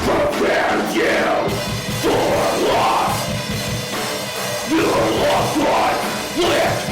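Deathcore song played by a full metal band, with harsh screamed vocals over heavy, distorted instruments.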